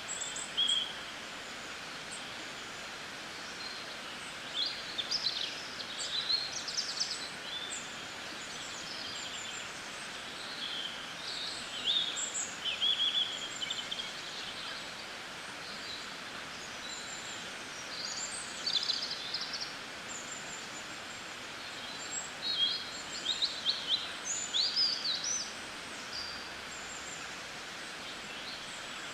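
Small birds chirping in quick clusters of short, high calls, repeated every few seconds over a steady background hiss.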